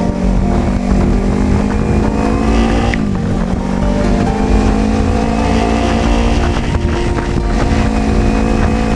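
Kawasaki Ninja 300's parallel-twin engine running under way, its pitch climbing slowly and then dropping sharply about three seconds in, as at an upshift.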